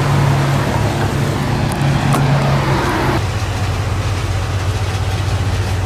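A vehicle engine idling with a steady low hum. The noise above the hum thins out about three seconds in.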